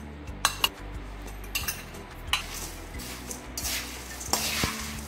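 A steel spoon stirring crisp fried thin poha flakes and powdered sugar in a steel bowl. A few sharp clinks of spoon on bowl come in the first half, then longer rustling swishes of the dry flakes being turned over.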